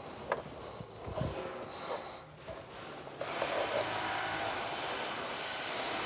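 A few light clicks and a dull knock of metal parts as a diesel high-pressure fuel pump is eased by hand into its mounting on the engine. About three seconds in, a steady rushing background noise starts and keeps going.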